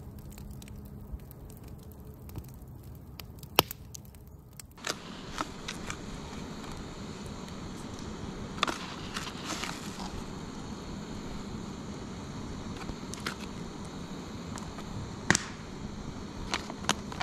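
Campfire crackling, with scattered sharp pops over a steady hiss.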